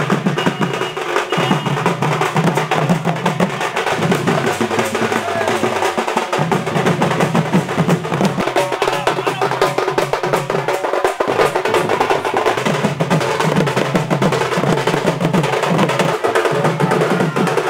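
Several two-headed barrel drums beaten together by marching drummers in a fast, continuous rhythm.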